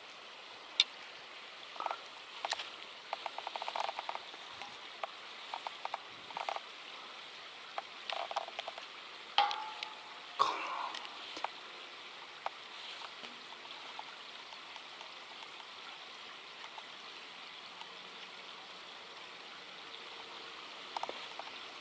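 Steady rush of water flowing out of a river outlet, with scattered clicks and rattles from a spinning rod and reel being handled: a quick run of clicks a few seconds in and a louder clatter around the middle.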